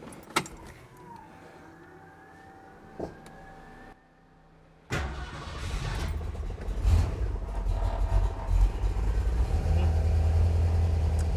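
A click and a faint thin whine as the ignition key is worked, then, just under five seconds in, the 1965 Mustang's small-block Ford V8 is suddenly running and holds a steady idle with a deep low rumble.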